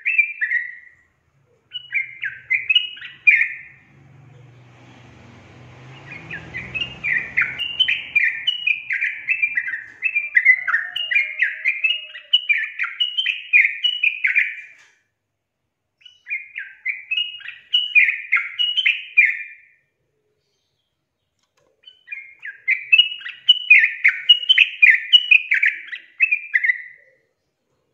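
Yellow-vented bulbul singing in phrases of a few seconds, each a quick run of chirpy notes, separated by short pauses. A brief low rumbling noise sits under the song about four to seven seconds in.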